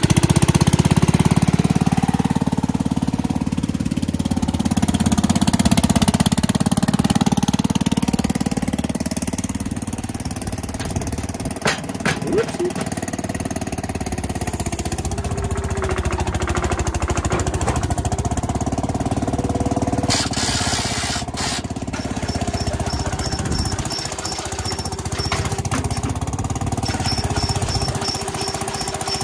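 Kohler Pro 13 single-cylinder gas engine running steadily with a rapid, chattering exhaust beat, just after being choked and started. A brief hiss about twenty seconds in.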